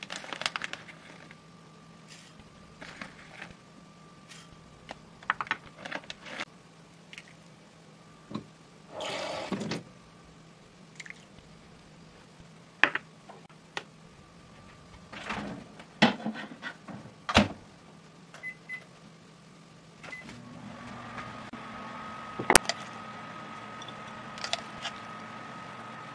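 Kitchen handling sounds, scattered clicks and knocks of dishes and utensils, then a couple of short beeps, and about two-thirds of the way through a microwave oven starts and runs with a steady hum.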